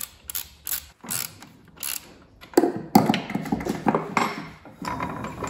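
Ratchet wrench clicking in short strokes as a nylock nut is tightened on a mower's clutch pull rod, followed from about halfway in by a denser metallic clatter of tools and gear parts being handled.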